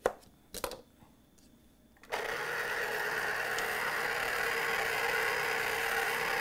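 A knife cuts through a lemon onto a plastic cutting board with two sharp knocks. About two seconds in, an electric citrus juicer's motor starts and runs steadily, spinning its reamer as a lemon half is pressed down on it to juice it.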